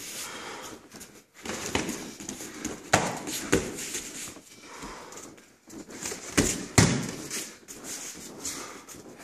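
Boxing gloves landing in a sparring exchange: a handful of sharp smacks and thuds. The loudest come about three seconds in and twice just before seven seconds.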